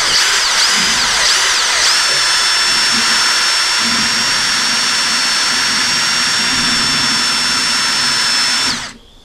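Cordless drill spinning a wine degasser whip in a still pot of fermented mash, stirring out the dissolved carbon dioxide before distillation. The motor's whine wavers in speed for the first couple of seconds, then runs steady and stops abruptly near the end.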